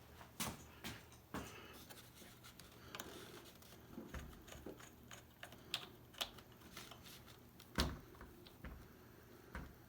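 Scattered small clicks, taps and scrapes of a screwdriver turning the machine screw that holds a model plane's propeller spinner, with a duller knock about eight seconds in.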